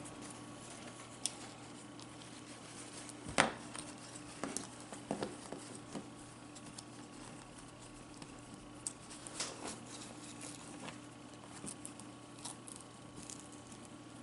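A plastic Barbie doll being handled and dressed in a small fabric dress: soft rustling and scattered light taps of the doll against a hard surface, with one sharper knock about three seconds in, over a faint steady hum.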